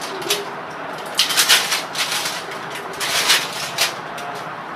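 Plastic wrapping crinkling and hard plastic clicking as a three-blade foldable LED fan bulb is unwrapped and handled. The sound comes in short bursts, about a second in and again about three seconds in.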